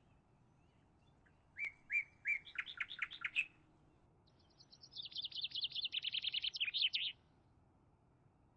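A small songbird singing two short songs, each a few separate notes running into a rapid trill; the first starts about a second and a half in, the second about four and a half seconds in.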